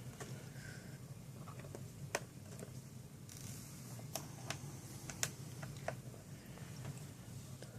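Scattered light clicks and taps from small objects being handled, about six in all, over a low steady hum.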